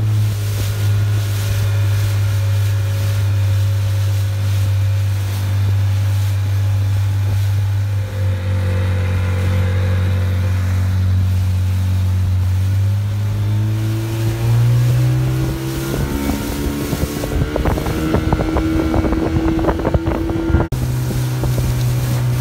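Small motorboat's engine running steadily under way, its pitch rising as the boat speeds up about two-thirds of the way through. Then a few seconds of rapid, irregular knocks and buffeting, cut off suddenly near the end by a steady engine note again.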